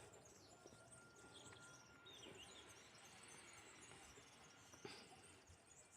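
Near silence: faint outdoor ambience with distant birds chirping now and then.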